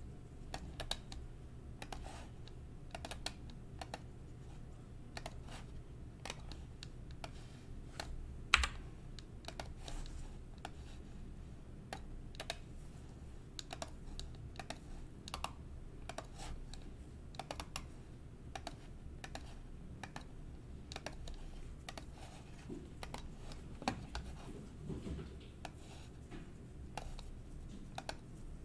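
Faint, irregular keystrokes on a computer keyboard, with one sharper click about eight and a half seconds in.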